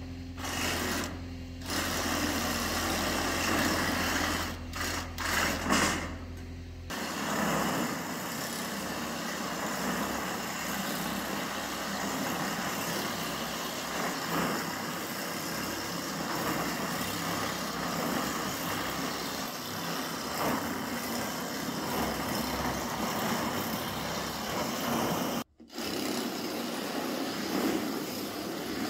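Cordless drill driving a drill-mounted metal-shear attachment, cutting lengthwise through a corrugated steel roofing panel. It runs in short starts for the first several seconds, then cuts steadily with a brief break near the end.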